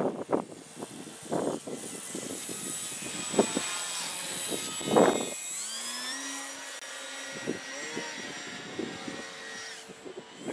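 Electric brushless motor and propeller of a radio-controlled Piper Cub model running as it takes off and climbs away: a thin high whine that rises in pitch about halfway through. Irregular bursts of wind noise on the microphone come and go, the loudest about five seconds in.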